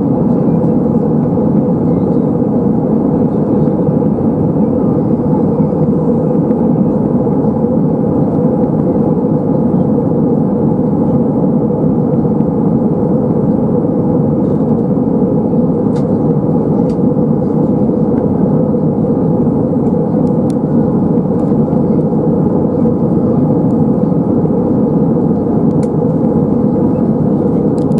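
Steady cabin noise of an Airbus A320-232 in flight, heard from a window seat over the wing: the dull, even roar of its IAE V2500 jet engines and the airflow past the fuselage, with a few faint ticks now and then.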